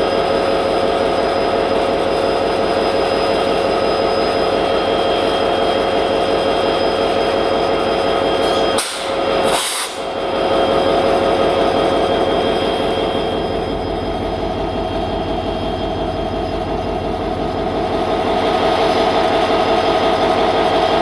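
WDP4 diesel-electric locomotive's 16-cylinder two-stroke EMD engine humming steadily, with a steady whine over a slow low throb. About nine seconds in the sound dips briefly, and two short hisses cut through it.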